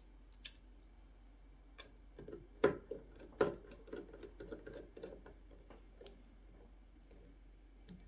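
Small screwdriver turning screws into the case of a PreSonus Studio 68c audio interface: a run of faint, irregular ticks and scrapes, with two sharper clicks around the middle.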